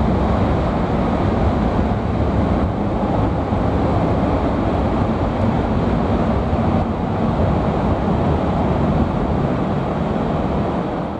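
Distant CASA CN-235 twin-turboprop transport flying past overhead: a steady, rushing drone of its propellers and engines, mixed with a wind-like hiss.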